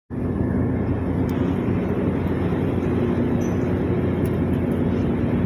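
Ship's engine machinery running: a steady low drone with a constant hum in it.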